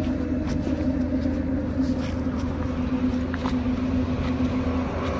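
A steady low hum holding one pitch, with a deeper rumble beneath, and a few faint footsteps on frosty ground.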